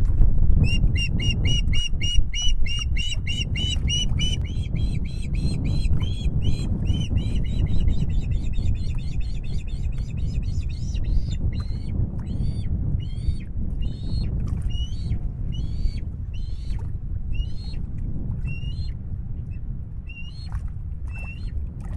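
Osprey calling: a long series of short, sharp whistled chirps, about three or four a second at first, slowing after about eleven seconds to roughly one every half second or more and growing fainter toward the end. A steady low rumble runs underneath.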